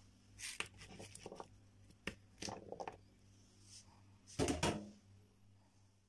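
Kitchen handling noises: a few irregular knocks and clatters of ingredients and utensils being moved about, the loudest a heavier thump about four and a half seconds in. A steady low electrical hum runs underneath.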